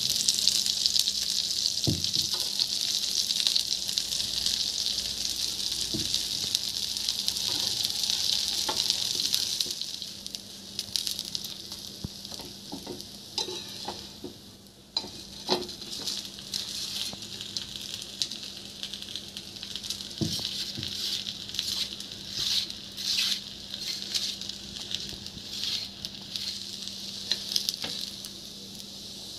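Oil sizzling under a masala dosa crisping on a flat nonstick tawa. The sizzle is loud and steady for about the first ten seconds, then drops to a fainter sizzle with scattered crackles and a few clicks and scrapes of a metal spatula as the crisp dosa is folded.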